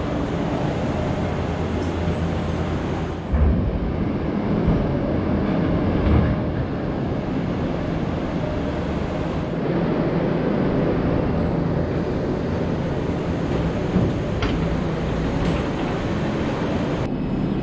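Diesel engine of a loader running and changing revs as it clears manure bedding out of a cow pen, with a few knocks.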